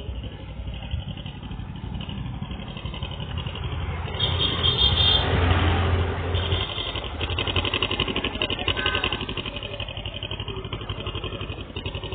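Passion motorcycle's engine running after a decarbon cleaning, briefly revved up about four seconds in and then settling back to a steady run.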